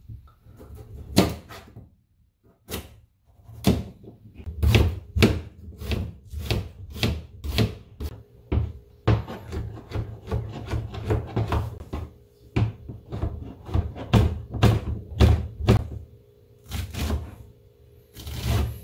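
Kitchen knife chopping on a plastic cutting board: a run of sharp, irregular knocks, one or two a second with short pauses, as pumpkin and then mushrooms are cut into pieces.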